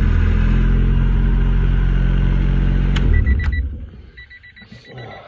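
1994 Honda Civic's four-cylinder engine idling, then a couple of clicks as the key is turned off about three seconds in, and the engine stops. The key-left-in-ignition reminder then beeps rapidly, a sign that the new lock cylinder's key-in switch is working.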